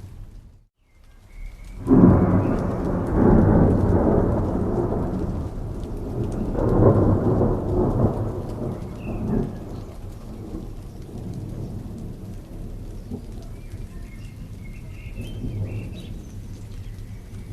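Thunderstorm: steady rain with a clap of thunder about two seconds in that rolls and rumbles, swells again midway and dies away, leaving the rain falling.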